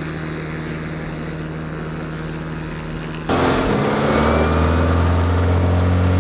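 Motorboat engine running steadily, then abruptly louder about three seconds in and climbing slightly in pitch as it speeds up to tow a water skier.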